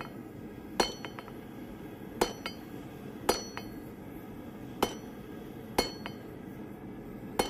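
Hand hammer striking hot steel on an anvil, six ringing blows spaced about a second apart with a few lighter taps between. The steel is held over the anvil's edge and struck half on, half off to forge a shoulder.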